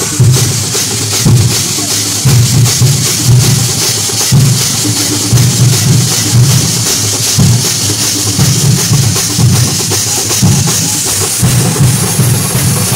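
Loud live festival drumming from a percussion troupe, heavy low beats in a fast, running rhythm with many sharp strokes, over the din of a dense crowd.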